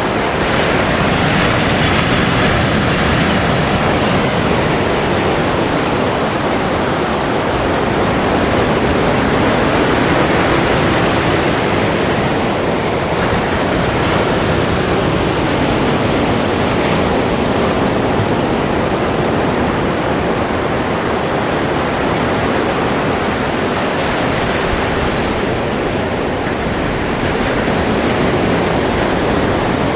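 Ocean surf: a continuous dense wash of breaking waves, swelling and easing slowly with no single crash standing out.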